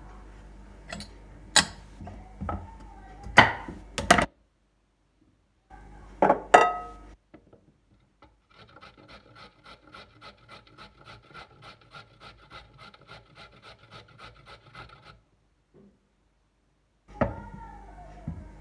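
Kitchen work sounds: knocks and clicks of utensils, then a clink that rings briefly. Next comes about six seconds of even, rhythmic scraping or rubbing, about four strokes a second.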